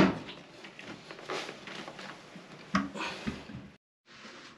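Quiet handling noises from a toilet bowl just lifted off its flange and being moved: faint shuffling and scraping with two light knocks about three seconds in. The sound cuts out briefly near the end.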